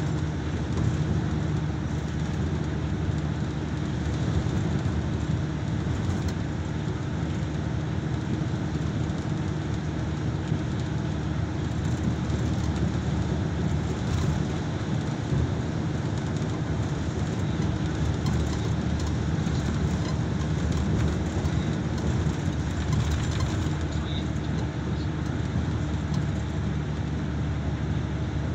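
Steady engine drone and road noise heard from inside a vehicle driving through a road tunnel, with a low, even hum.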